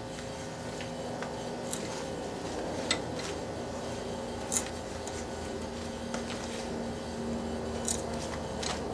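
Hand tap cutting 1/2-inch 13-tpi threads into 4140 steel plate, turned by hand through a tapping guide. Sharp clicks come every second or so as the tap bites and chips break, the loudest about halfway through, over a steady background hum.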